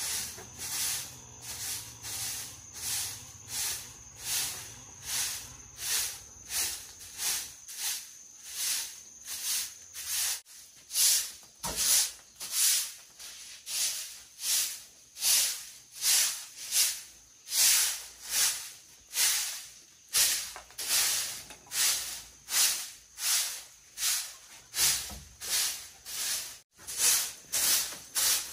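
Rhythmic swishing strokes, a little under two a second, growing louder after about ten seconds.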